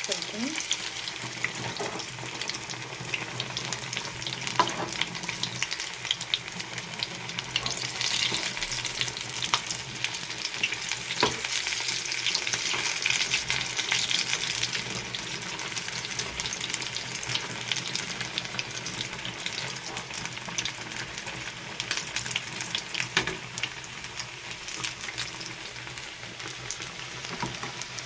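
Battered, potato-stuffed bread pakoras deep-frying in hot oil: a steady sizzle with dense crackling, a little louder around the middle.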